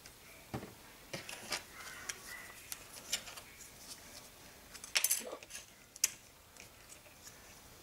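Light clicks and taps of small plastic model-kit parts and a plastic glue bottle being handled and set down on a cutting mat, a quick cluster about five seconds in and a sharp single tap a second later.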